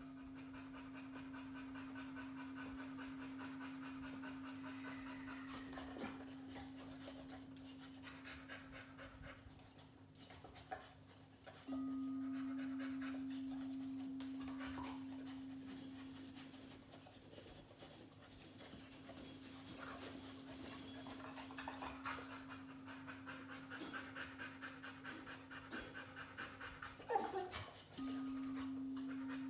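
Crystal singing bowl ringing one steady low tone, swelling in at first and then struck again about twelve seconds in and once more near the end, each time fading slowly. A boxer pants through it, with quick, even breaths strongest in the second half.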